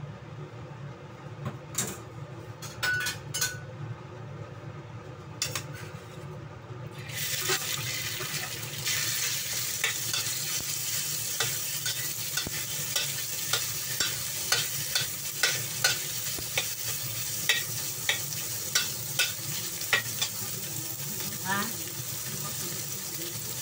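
Minced meat dropped into hot oil in a wok starts sizzling about seven seconds in, and the hiss grows louder. A metal spatula then scrapes and clinks against the wok about twice a second as the meat is stir-fried. Before that, only a steady low hum and a few light clinks are heard.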